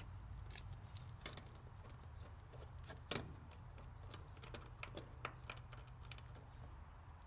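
Scattered light metallic clicks and taps from hand tools and fittings being handled, a louder click about three seconds in, over a steady low hum.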